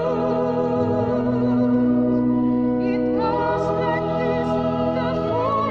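Background music: a solo voice sings with vibrato over sustained, organ-like chords.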